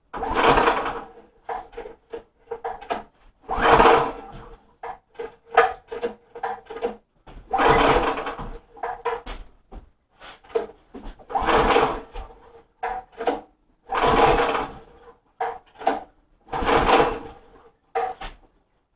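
Recoil pull-starter on a small gas engine being pulled about six times, roughly every three seconds, with rattles and clicks between pulls; the engine turns over on each pull but does not catch and run.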